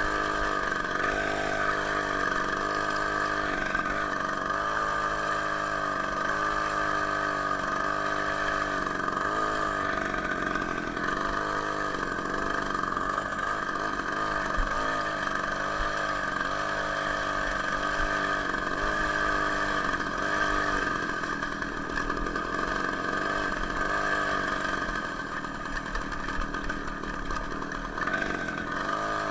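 Two-stroke engine of a homemade moped built from a Ural chainsaw, running throughout, its engine speed rising and falling again and again as the throttle is worked. It runs a little quieter from about 25 seconds in.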